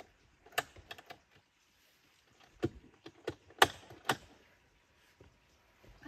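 A series of sharp clicks and knocks at irregular intervals, about seven in all, the loudest about three and a half seconds in.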